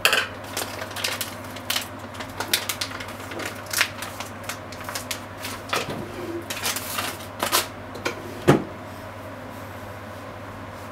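Ground pork cooking in a frying pan with added liquid, crackling and popping in irregular sharp pops over a steady low hum; the popping stops about eight and a half seconds in.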